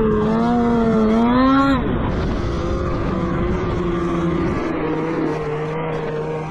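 Snowmobile engine revving, its pitch climbing for the first couple of seconds and then dropping sharply as the throttle comes off, before running on at a steadier, lower speed.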